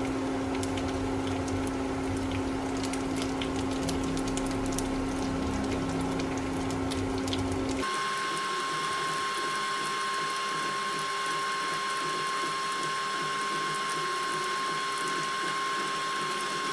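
Pieces of vegetarian mock meat frying in hot oil in a pan, a steady sizzle full of fine crackles, over a steady hum. About eight seconds in, the low part of the sound drops away and the hum moves to a higher pitch.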